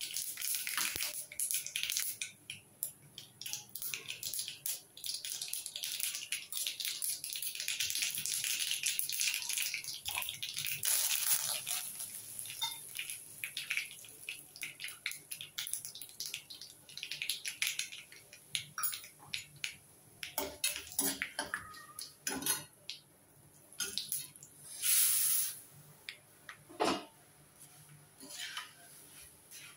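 Mustard seeds spluttering and crackling in hot oil in a stainless steel kadai, dense for about the first twelve seconds and then thinning to scattered pops as curry leaves sizzle in the oil. Later come a short rush of noise and the clinks and scrapes of a spoon stirring puffed rice against the steel pan.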